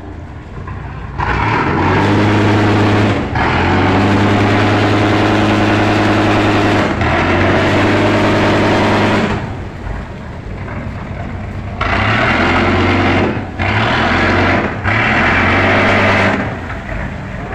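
Large wooden passenger boat giving out a loud, steady, low drone in long stretches of two to three and a half seconds that start and stop abruptly. A quieter stretch of about two seconds falls in the middle.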